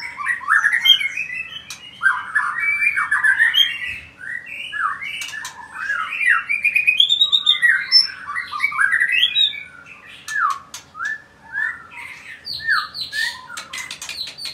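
Male white-rumped shama singing a fast run of varied whistled and chattering phrases. After about ten seconds the song thins out into separate phrases broken by sharp clicks.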